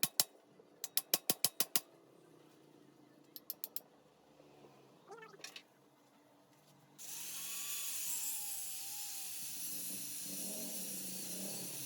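Mechanical clicking in quick bursts of several clicks each, then a steady hiss begins about seven seconds in.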